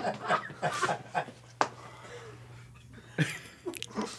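A man's breaths, short grunts and mouth noises as he chews and forces down a whole boiled worm, over a faint steady low hum.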